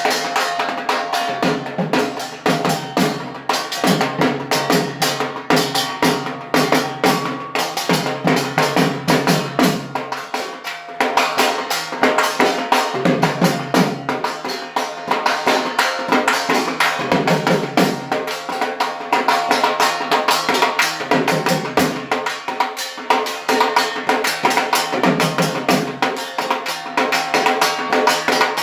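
Dhak, the large Bengali barrel drum beaten with sticks, played in a fast, unbroken rhythm of dense strokes, with deeper booming beats recurring every few seconds.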